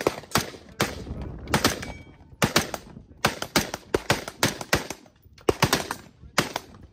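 A Heckler & Koch rifle firing strings of quick shots, several a second, with short pauses about two seconds in and again about five seconds in.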